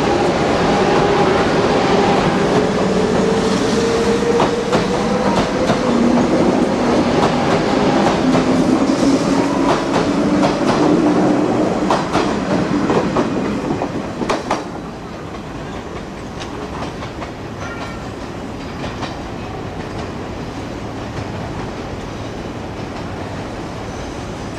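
381-series electric train pulling out and gathering speed: its motor whine slowly rising in pitch over the rattle and clicking of wheels on rail joints. About fourteen seconds in the sound drops away to a quieter, steady rumble with occasional clicks as the train moves off.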